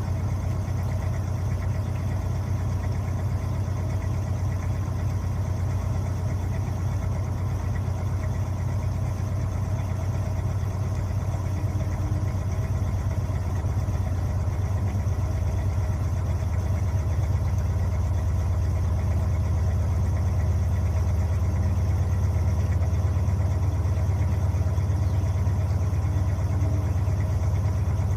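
Electrolux LTA15 washing machine running, a steady low hum that grows slightly louder about halfway through.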